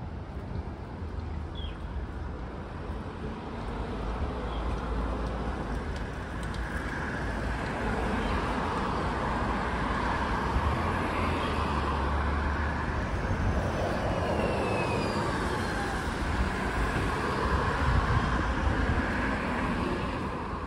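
City road traffic: cars passing with a steady rumble and tyre noise, growing louder about four seconds in.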